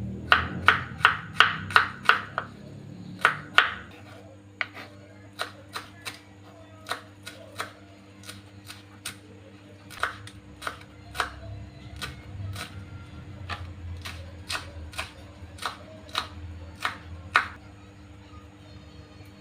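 Knife chopping on a cutting board: a quick run of about eight strokes at the start, then slower, uneven cuts, about one or two a second.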